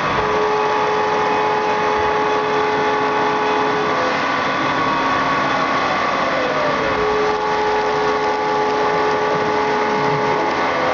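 Quaser MV154PL CNC machining centre milling aluminium with emulsion coolant: a steady whine of the spindle and cut over a hiss of coolant. About four seconds in the cutting tone breaks off and a pitch slides down, then the tone comes back about seven seconds in.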